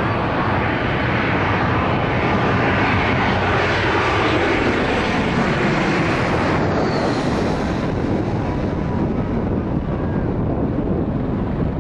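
Jet engines of an Airbus A320 airliner on low final approach passing overhead: a loud continuous roar, with a high whine that drops in pitch about seven seconds in as it goes by.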